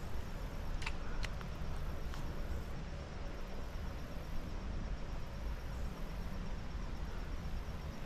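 Steady rushing noise of flowing creek water, with a few light clicks in the first couple of seconds.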